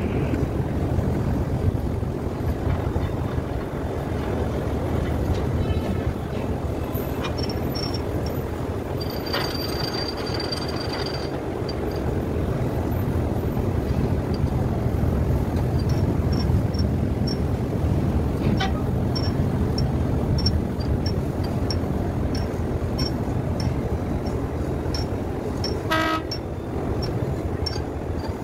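A steady low engine rumble, with a thin high tone for a couple of seconds about a third of the way in. Faint regular ticking runs through the last part, and a short horn toot sounds near the end.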